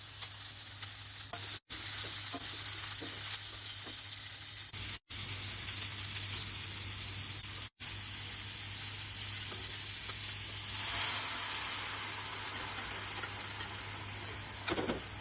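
Food sizzling in hot oil in a pan, a steady frying hiss, with the sound cutting out for an instant three times.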